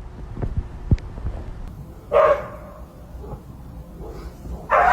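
A dog barking: one short bark about two seconds in, then louder, longer barking starting near the end, with a couple of sharp knocks in the first second.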